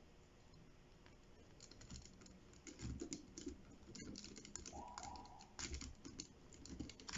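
Faint, irregular plastic clicks and light rustles from handling a Transformers Grimlock action figure and its packaging. They start after a quiet first second or so and come in small clusters.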